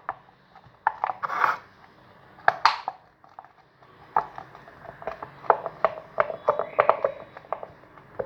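Irregular clicks, taps and short scrapes from plastic containers being handled while white PVA glue is opened and squeezed out for slime, with a denser run of clicks about five to seven seconds in.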